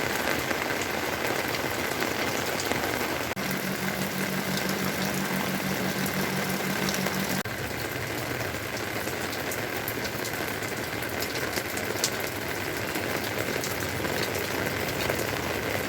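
Steady rain falling, an even hiss. A low pulsing hum joins it from about three seconds in to about seven seconds in.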